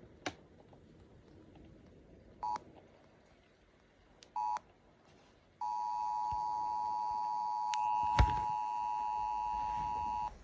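Emergency Alert System two-tone attention signal sounding steadily for about five seconds through a radio speaker, preceded by two short beeps of the same tones. A sharp knock sounds partway through the tone.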